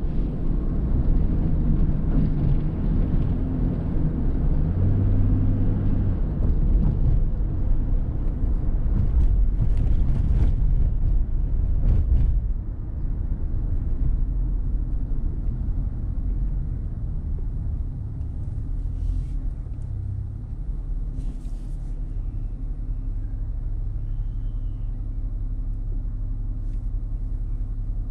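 A car being driven: steady low engine and road rumble, easing down in level about twelve seconds in.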